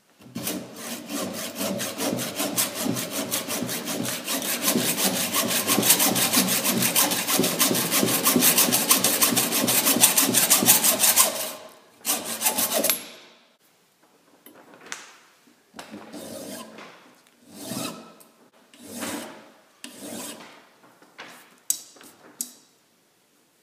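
Hand-held hacksaw blade cutting through a small screw that sticks out of an electric motor's end bell, in quick steady strokes for about eleven seconds. It then stops, and a few short separate scrapes and rubs follow with pauses between them.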